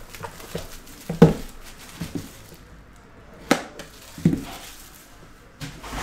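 Clear plastic shrink-wrap being pulled off a cardboard trading-card box, with crinkling and several sharp clicks and knocks; the loudest is about a second in.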